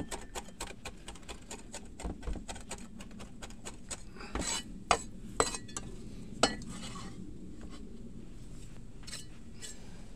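Kitchen utensils clicking and clinking against a bowl while seasoning and herbs go into a meat marinade. The handling starts as a run of small quick clicks, a few louder separate clinks follow about four to six and a half seconds in, and it turns faint after that.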